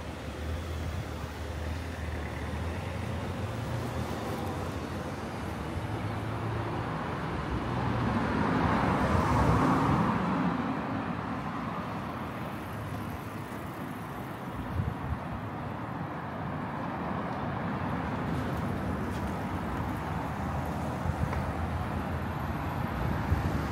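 Road traffic noise, with one vehicle passing close by about eight to eleven seconds in, swelling and then fading.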